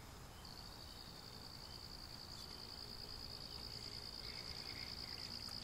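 Faint, steady high-pitched insect trill starting about half a second in, over soft outdoor background noise.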